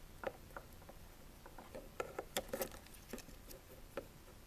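Faint, scattered light clicks and taps from working small parts inside an opened smartphone with fine tools, a quick cluster of them about two seconds in.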